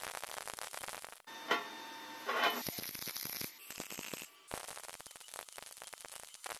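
MIG welding arc crackling as beads are run along the seams of a steel sheet-metal box. About a second in, a steadier buzzing tone takes over for about a second before the crackle returns, and the sound breaks off briefly just after four seconds.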